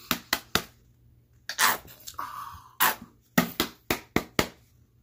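A run of short, sharp knocks and clicks from a plastic squeeze bottle of sauce being shaken and squeezed over pizza, with a brief hissy sputter a little after two seconds in; near the end the clicks come thicker as the camera is handled up close.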